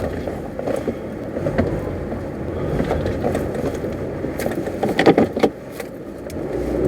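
Honda HR-V rolling slowly with a steady rumble, then a burst of hard clunks from the front suspension about two-thirds of the way through: the violent jolt that the mechanic traces mainly to worn front lower control arms.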